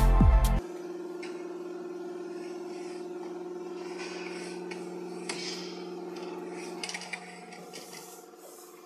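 Electronic music with a beat cuts off about half a second in. It gives way to a rotary draw tube-bending machine running with a steady hum, with light scraping and a few small metallic clicks in the second half.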